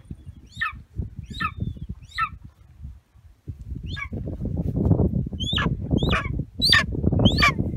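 Young golden eagle calling: about eight short, high, thin calls, each sliding sharply down in pitch. A low rumbling noise sits under the calls in the second half.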